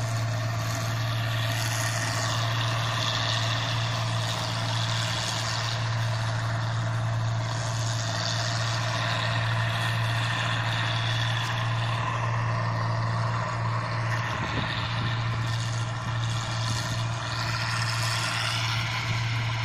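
Small old New Holland rice combine harvester at work, its engine running with a steady low drone and a constant hiss of noise over it.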